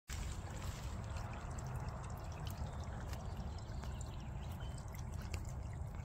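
Water from a small fountain jet trickling and splashing back into a shallow concrete basin, steady throughout.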